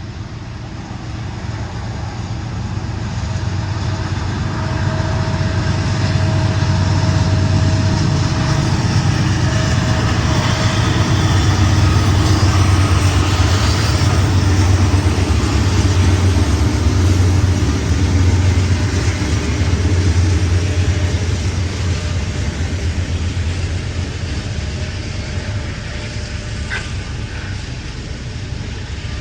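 Norfolk Southern diesel-hauled freight train passing: locomotive engines running and rail cars rolling on the track. It builds over the first several seconds, holds, and slowly fades in the last third.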